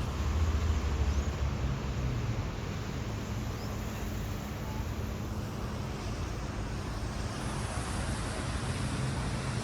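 Street traffic: a steady low rumble of vehicle engines over a haze of road noise, heaviest in the first couple of seconds.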